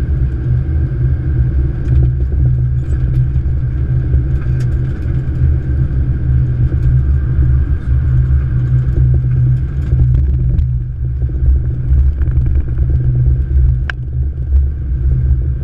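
Flight-deck noise of a Boeing 777-200ER rolling down the runway after touchdown: a loud, steady low rumble from the wheels and airflow, with a single sharp click near the end.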